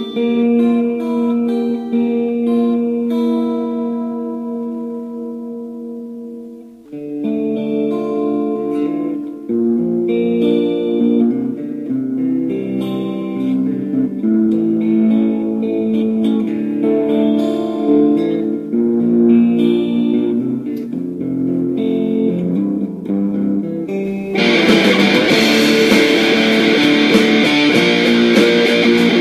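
Guitar instrumental. A chord rings and slowly fades over the first several seconds, then picked guitar notes resume about seven seconds in. Near the end the music turns fuller, brighter and louder.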